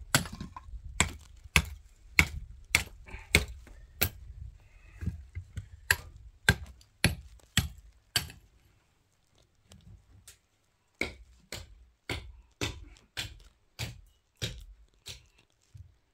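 A series of sharp knocks at about two a second, stopping for about two seconds midway and then resuming at the same pace.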